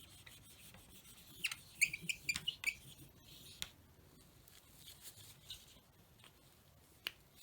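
Permanent marker squeaking and scratching in short strokes across a plastic overhead-projector transparency sheet. The strokes come as a cluster of squeaks between about one and a half and three seconds in, then fainter scratches and taps.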